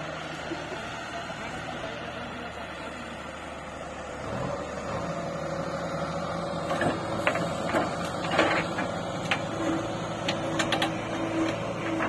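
A heavy-machinery diesel engine running steadily, picking up speed about four and a half seconds in, with a series of sharp metallic clanks and knocks in the last few seconds.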